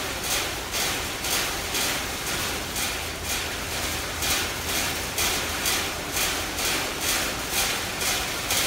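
Chimpanzee striking the steel bars of its cage in a steady rhythm, about two metallic strikes a second. This is a stereotyped, repetitive behaviour kept up for close to an hour, a sign of captivity stress (zoochosis).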